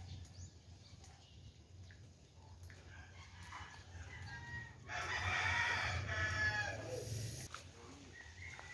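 A rooster crowing: one long, loud crow starting about five seconds in and lasting a couple of seconds, with fainter calls just before it.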